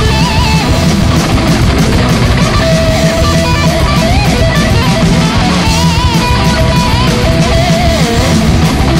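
Old-school speed/thrash metal recording: distorted electric guitars, bass and drums playing at full volume, with a lead guitar line bending and wavering in pitch over the top.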